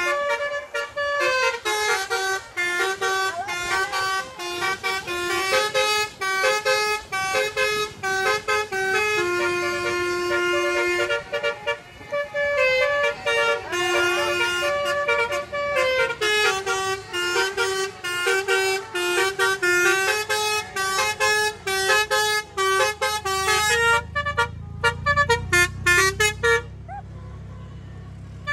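A basuri telolet musical air horn plays a fast tune of short, blaring, stepped notes almost without a break. It turns sparse and stops shortly before the end, with a low rumble underneath in the last few seconds.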